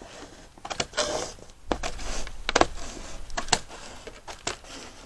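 Large scissors snipping across a clear corrugated plastic roofing panel: a series of irregular sharp snaps as the blades crack through the plastic, with the sheet rustling as it flexes between cuts.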